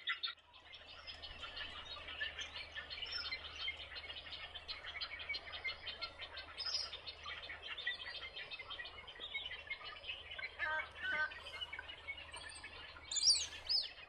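Many birds chirping and calling at once in a dense, continuous chorus, with one louder call standing out near the end.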